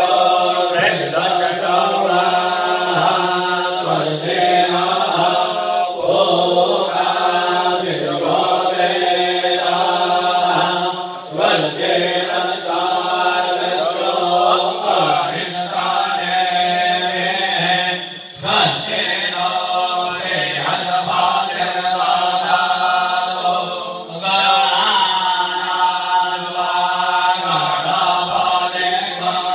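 Priests chanting Vedic mantras as an auspicious invocation prayer, a continuous recitation with brief breaks between verses.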